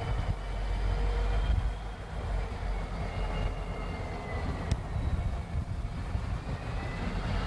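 Conrail EMD SD50 diesel locomotives rolling slowly past, a steady heavy rumble of engines and wheels with a faint high squeal drifting down in pitch. A single sharp click near the middle.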